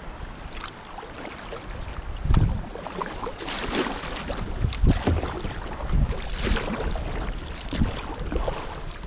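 Kayak paddling on a river: paddle blades splash in the water, and several irregular low thumps are the loudest sounds.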